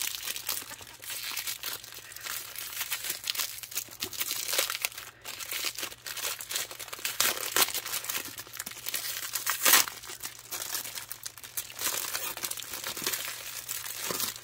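Clear plastic wrapping crinkling and rustling as hands pull it off a pack of thermal paper rolls, in irregular crackles with one louder crackle near the middle.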